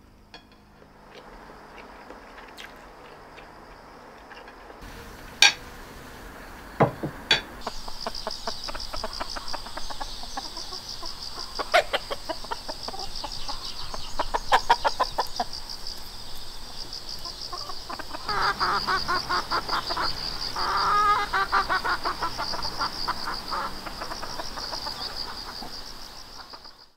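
Chickens clucking and calling over a steady, high, fast-pulsing insect trill. A few sharp clicks come before the trill starts.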